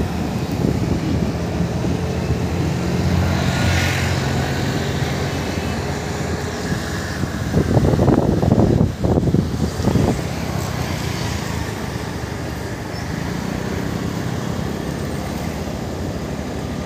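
Motorbike engine running at a steady cruise on a road, with tyre and traffic noise around it. About halfway through comes a louder rushing noise lasting a couple of seconds.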